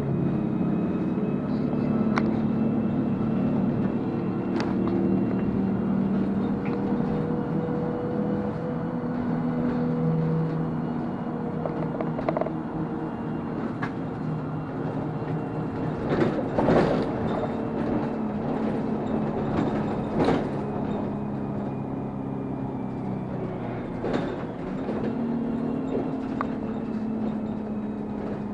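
A bus's engine running as the bus drives along, heard from inside the passenger cabin. The engine note shifts up and down in pitch several times. Sharp knocks and rattles from the bus body come through, most of them bunched together a little past halfway.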